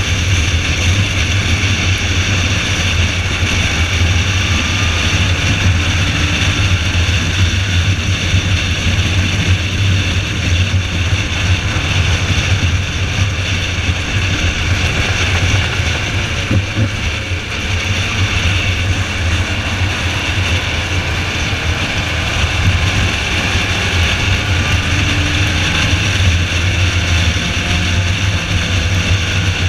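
Car driving at speed on a wet track: a steady low engine drone under an even hiss of wind and tyre spray.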